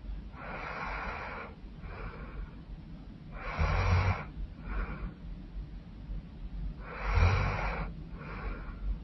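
A woman snoring heavily in her sleep: three rasping snores about every three seconds, the second and third the loudest with a low rumble, each followed by a shorter, softer breath.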